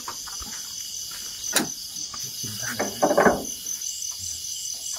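Crickets chirping in a steady, evenly pulsing high trill. A single sharp click comes about one and a half seconds in, and a few rustling knocks follow around the three-second mark.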